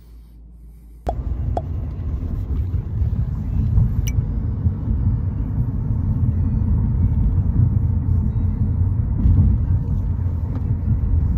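Car driving: a steady low road rumble that starts suddenly about a second in, after a moment of quiet room sound.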